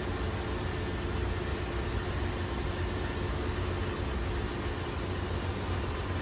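Steady engine-room noise: a low machinery hum under an even hiss, with a Hyper Mist water-mist nozzle spraying.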